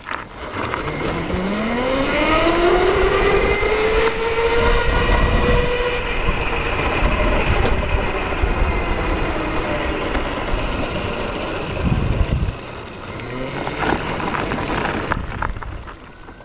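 Electric go-kart's dual 48 V 1000 W motors whining, rising in pitch as the kart accelerates over the first few seconds and then holding at speed under steady wind and road noise. It eases off about twelve seconds in, picks up again briefly, and dies away near the end as the kart stops.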